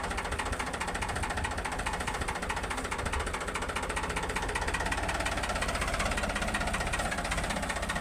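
Farmtrac 45 tractor's diesel engine running steadily with a fast, even knocking beat, rising slightly in pitch over the last few seconds.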